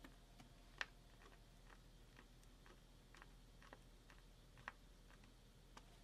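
Near silence with faint, scattered small clicks and ticks of hands handling small metal parts and screws in the opened iMac chassis. The sharpest click comes about a second in, and another near the end.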